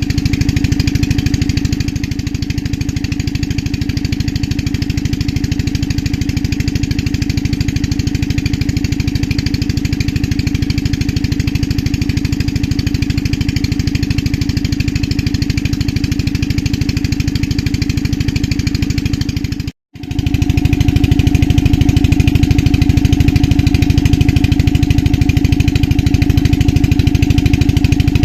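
An engine running steadily with a fast, even pulse. It cuts out for a moment about twenty seconds in and resumes.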